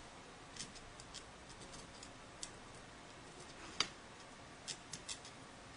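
Faint, irregular small clicks and ticks of a thin metal pick against the airgun's regulator body while an O-ring is pressed back into the fill valve port. The sharpest click comes a little before four seconds in.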